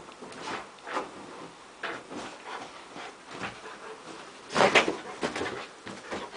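A Rottweiler moving about on a bed after a laser dot: irregular scuffs and rustles of its paws and body on the bedspread, with the loudest burst a little over halfway through.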